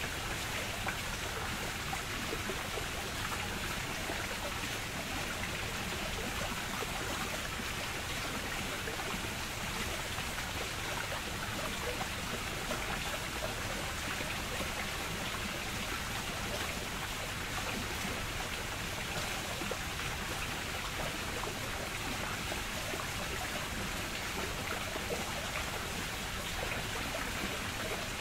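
Steady, even rush of running water, with no separate splashes, strokes or changes.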